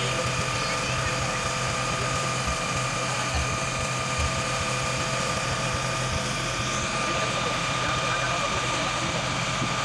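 Boat engine running at a steady drone, with a constant hum over engine and water noise.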